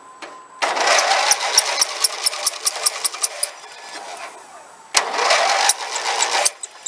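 Deutz-Allis 613 Hydro garden tractor's engine being cranked by its electric starter in two tries: about three seconds with rapid regular ticks, then, after a short pause, about a second and a half more.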